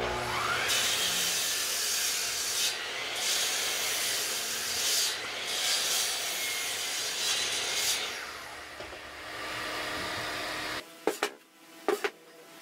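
Bosch sliding compound miter saw spinning up with a rising whine and crosscutting a beech board, then winding down with a falling whine about eight seconds in. In the last two seconds there are several sharp knocks of wooden boards being set down on a table.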